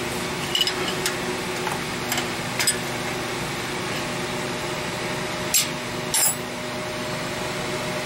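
Steel open-end wrenches clicking and clinking against the pipe fittings under an air compressor's pressure switch as a tight nut is worked loose: about six short sharp metal clicks over a steady machine hum.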